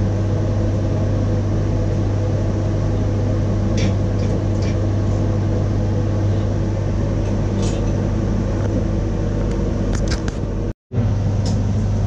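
Steady low mechanical hum with a few light clicks and knocks scattered through it. The sound cuts out for a moment near the end.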